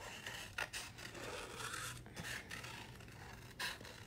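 Scissors snipping through cardstock while fussy cutting around a stamped image: several sharp snips with the paper rustling and scraping between them.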